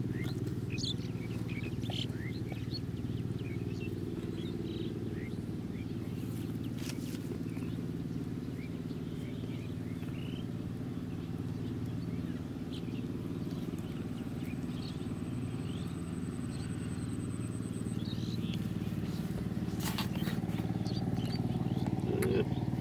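A steady low engine-like hum runs throughout, with scattered small bird chirps over it and a couple of brief knocks, about seven seconds in and near the end.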